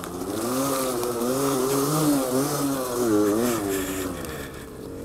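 Small motor vehicle engine running while ridden, its pitch swelling and dropping several times with the throttle, and getting quieter near the end.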